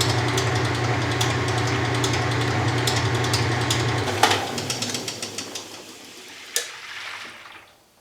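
1993 Kenmore 80 Series top-load washer running empty with a steady motor drone and a light ticking, then shutting off about four seconds in with a sharp knock and coasting down with a few more knocks. The knocking on stopping comes from the balance ring not being seated right on the tub.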